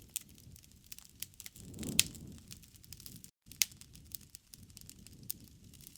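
Wood fire crackling, with scattered small snaps and a louder pop about two seconds in, over a soft low rumble of the flames. The sound cuts out for an instant just after three seconds.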